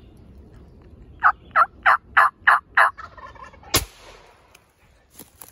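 Six evenly spaced turkey yelps, about three a second, then a single sharp crack just under four seconds in.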